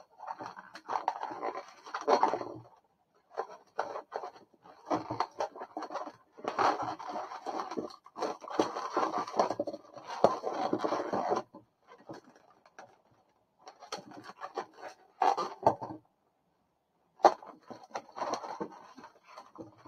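Latex modelling balloons squeaking and rubbing against one another as hands twist and weave them together, in irregular bursts with a few short pauses.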